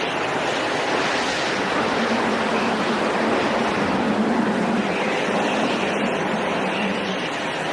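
Steady rushing wind noise with a faint low hum running underneath.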